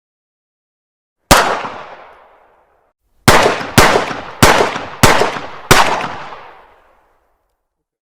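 9mm pistol shots: a single shot, then after a pause a string of five quick shots about half a second apart, each with a long echoing tail.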